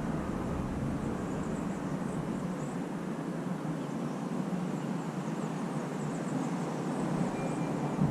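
Steady hum of distant city traffic, with faint, high-pitched chirps of small birds scattered through it and a short thin whistle near the end.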